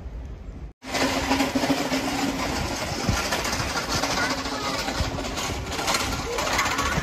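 Street noise dominated by a lorry's engine running, with people's voices mixed in. A steady low engine tone stands out for the first couple of seconds after a sudden start.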